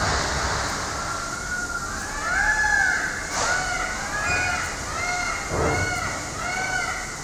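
An animal calling again and again: short calls that rise and fall in pitch, about two a second, starting about a second in, over a steady background rush.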